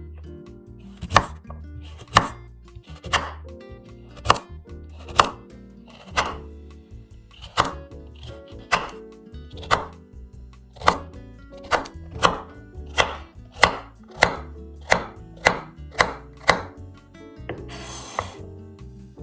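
Kitchen knife chopping food on a cutting board in sharp, even strokes, about one a second at first and then speeding up to about two a second. A brief scrape sounds near the end, and soft music plays underneath.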